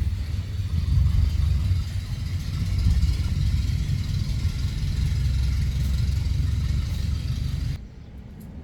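Steady low rumble with a faint hiss, cutting off abruptly about a second before the end.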